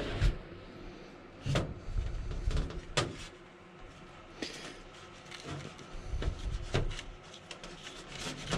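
A wooden cabinet frame knocking and bumping as it is held up and shifted into place against a wall: a few irregular sharp knocks with rustling handling noise between them.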